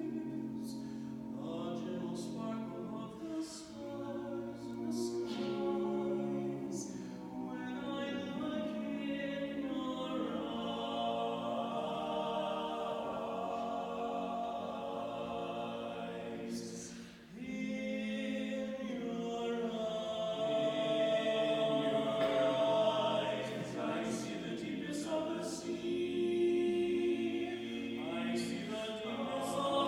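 Barbershop a cappella singing: unaccompanied voices holding close-harmony chords in long sustained phrases, with a brief break for breath about 17 seconds in and a louder passage in the second half.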